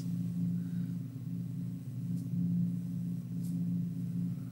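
A steady low electrical hum, with a few faint, brief scratches of a thin felt-tip marker drawing short lines on paper.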